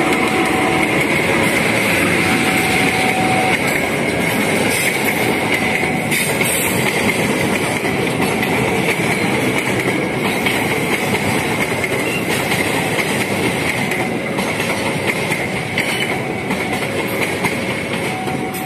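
A passenger train passes at close range as it comes into a station: first a CC 201 (GE U18C) diesel-electric locomotive, then a rake of economy coaches. The wheels clack over the rail joints, with a steady high whine over the rumble, easing off slightly near the end.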